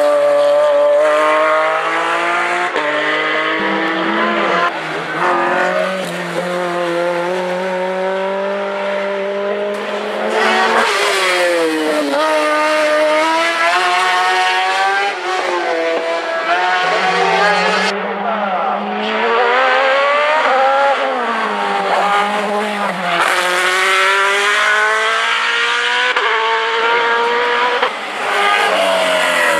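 Race car engines at full throttle, the pitch climbing and dropping again and again through gear changes as several cars pass one after another.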